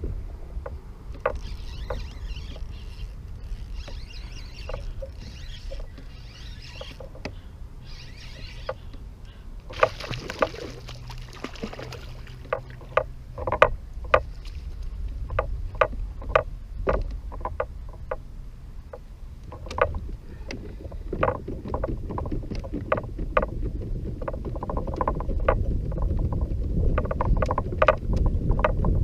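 Kayak on the water: water moving against the hull, with many scattered knocks and clicks on the boat and a steady low rumble of wind on the microphone. A short burst of hiss comes about ten seconds in.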